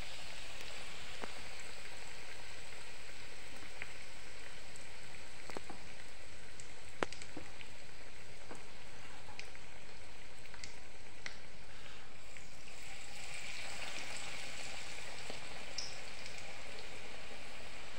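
Batter-coated potato vadas deep-frying in mustard oil in an iron kadai: a steady sizzle with scattered pops. The sizzle grows louder about two-thirds of the way through, as a second vada joins the first in the oil.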